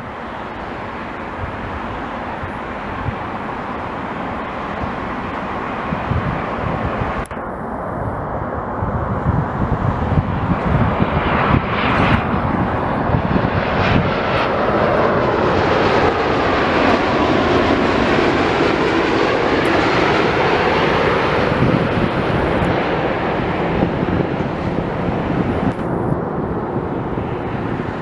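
Jet airliner passing, its engine noise building over the first several seconds and holding loud through the middle, with tones that sweep in pitch as it goes by.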